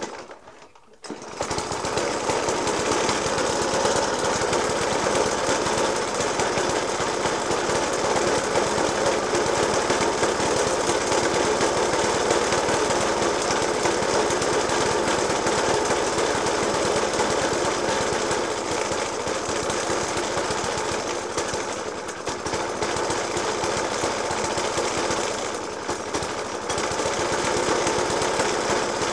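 Suffolk Punch 30S cylinder mower's petrol engine starting about a second in, then running at a rough, uneven idle with rapid knocking firing. The owner takes the heavy banging at idle as a fault that a new spark plug, decoke and cleaned Dellorto FCH 20 carburettor have not cured.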